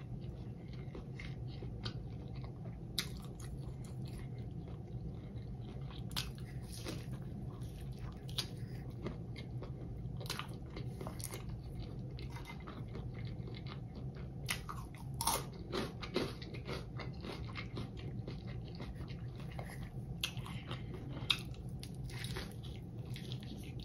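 A person chewing and crunching a fried, Hot Cheetos-crusted lobster tail. Irregular crisp crackles and clicks run throughout, with a few louder crunches in the second half and a fresh bite near the end.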